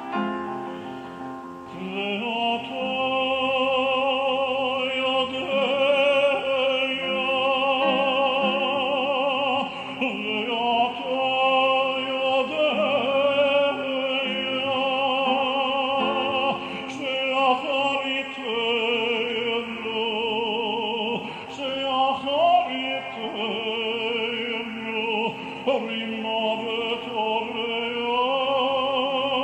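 Male cantor singing hazzanut (Jewish liturgical chant) in an operatic style, holding long notes with wide vibrato and ornamented slides between them, over sustained instrumental accompaniment.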